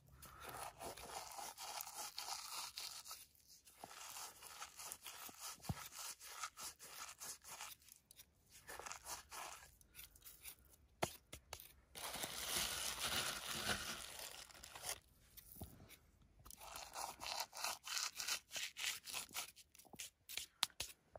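Whole coriander seeds crushed and rubbed between the palms over a bowl of gram flour: a quiet, dry crunching rustle in several spells a few seconds long, with short pauses between.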